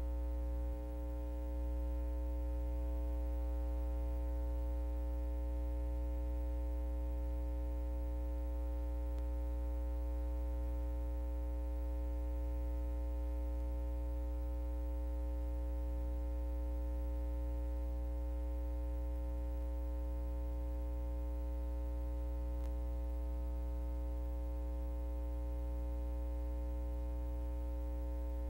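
Steady low electrical mains hum, with fainter steady higher tones above it and nothing else.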